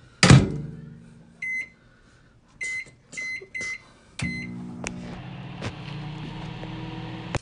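Microwave oven door shut with a sharp knock, then several short keypad beeps as the time is set, and the microwave starts up about four seconds in, running with a steady hum.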